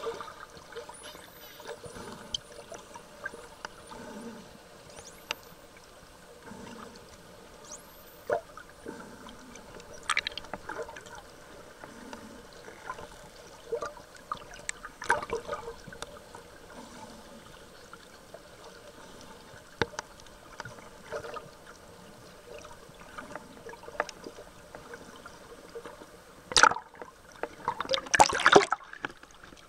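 Underwater sound of a pod of spinner dolphins: several high rising whistles in the first eight seconds over a low water hiss, with scattered clicks and knocks. About 27 and 28.5 seconds in come two loud bursts of splashing and bubbling water.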